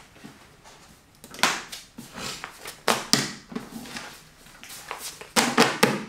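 Sheets of exam paper rustling as they are picked up, shuffled and handled on a desk, in a few separate rustles, the loudest near the end.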